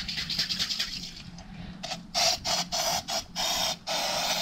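Cooking oil spray hissing in a string of short bursts, starting about two seconds in, as the can is sprayed over and over.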